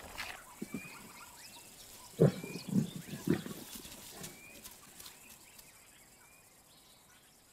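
A big cat snarling: three short, rough growls in quick succession about two seconds in.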